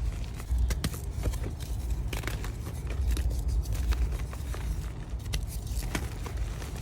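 Reformed gym chalk being crushed, giving an irregular run of crisp crunches and crackles over a low rumble of handling noise.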